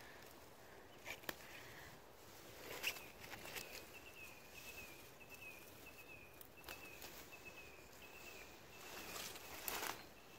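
Footsteps and rustling through leafy undergrowth, a few sharp brushes against the plants, the loudest about three seconds in and again near the end. A faint, high, slightly wavering trill carries on in the background through the middle seconds.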